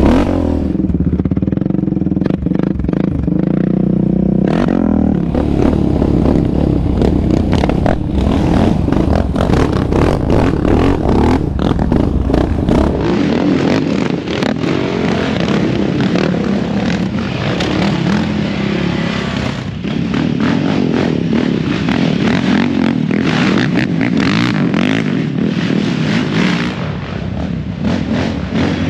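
Yamaha Raptor 700 sport ATV's single-cylinder engine running and revving on a bumpy dirt trail, steady at first, then rising and falling with the throttle. About halfway in the sound changes to quads working through a rutted trench, engine revving with clattering and scraping over the rough ground.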